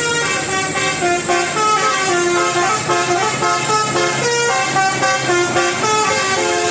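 Bus 'basuri' multi-tone musical horn playing a quick melody, its notes changing pitch several times a second, over a steady low hum.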